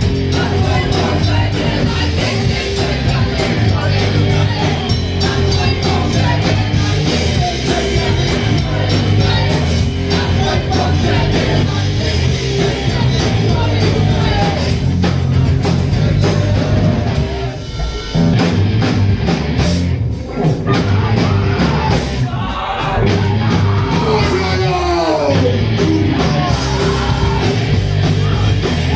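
Live rock band playing loudly: electric guitar and drum kit with cymbals, with a woman singing. The music briefly drops back twice a little past halfway through.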